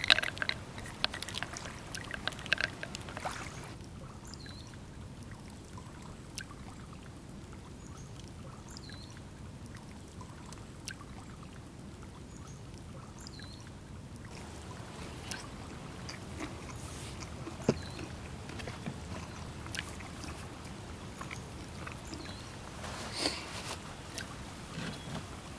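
Roasted hazelnuts poured into a carved wooden bowl, clattering and rattling for about three seconds. After that comes a steady low wash of water at the shore, with a few faint scattered clicks.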